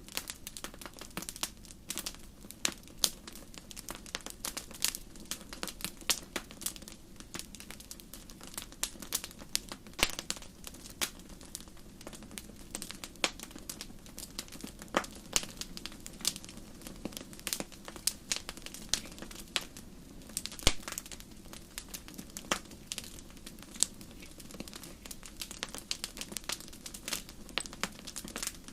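Wood campfire crackling: irregular sharp pops and snaps, a few louder than the rest, over a steady low hiss of flame.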